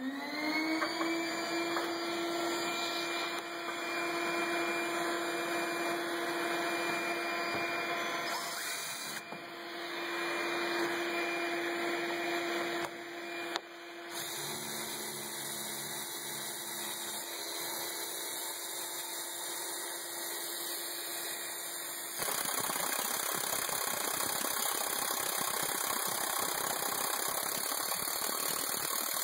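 Cordless DeWalt impact wrench driving an impact-rated hole saw into thick steel plate. It spins up to a steady whine, and about three quarters of the way through the sound turns into a louder, rougher rattle as the tool impacts its way through the steel.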